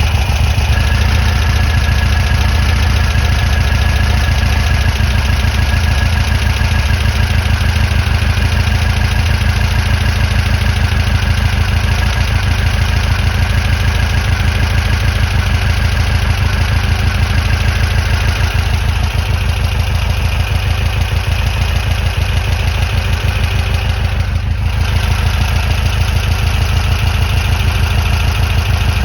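Air-cooled VW flat-four engine of a 1963 VW 23-window bus running steadily at an even speed, with a faint high whine through the first half or so.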